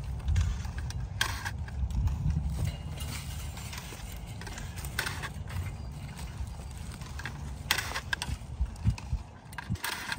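Handheld battery-powered vine-tying tool firing several times as grape canes are tied to the trellis wire, each tie a short sharp mechanical snap a few seconds apart, over a steady low rumble.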